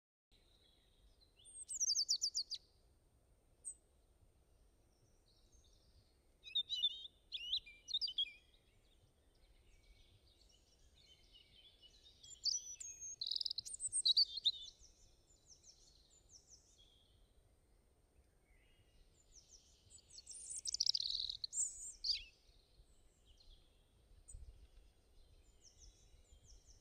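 Birds chirping and singing in several separate bursts of quick high chirps, over a faint steady low background noise.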